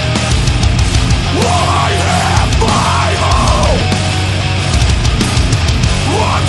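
Loud, heavy, aggressive rock music in the heavy metal style, running steadily with a dense low end and sliding, arching high parts.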